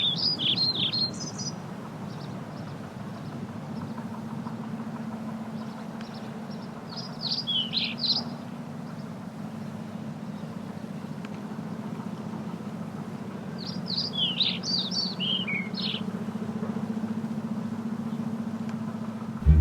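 A songbird singing three short phrases of quick rising and falling notes, several seconds apart, over a steady low hum.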